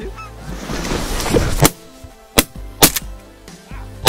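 Shotgun shots at geese, about five sharp blasts over two and a half seconds, two of them almost together and the loudest near the end, after a rising rustle. Background music runs underneath.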